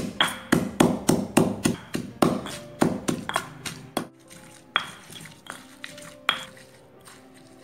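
Stone pestle pounding chilies, shallots and garlic in a stone mortar (ulekan): quick sharp knocks about three to four a second, thinning to a few spaced knocks in the second half, over background music.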